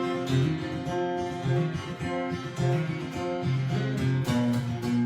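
Gibson short-scale acoustic guitar strummed and picked, with chords and single notes ringing on and a new stroke every half second to a second.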